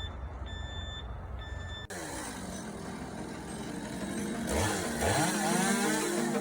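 Reversing alarm beeping on a work truck over its running engine. About two seconds in, the sound cuts abruptly to electronic music that builds up with sweeping pitch glides.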